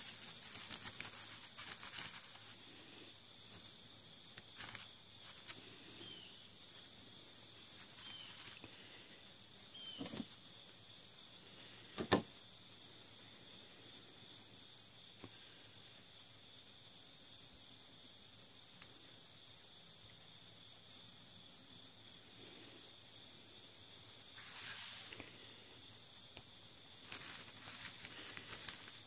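Steady high-pitched chorus of insects, with light crinkling of a dry pine-needle tinder bundle being handled and a couple of sharp taps about ten and twelve seconds in.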